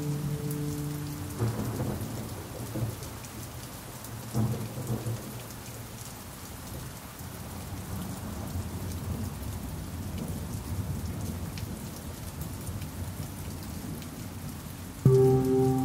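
Steady rain falling, with low rumbles of thunder swelling a couple of times early on. A pan drum note rings out and fades at the start, and another pan drum note is struck near the end.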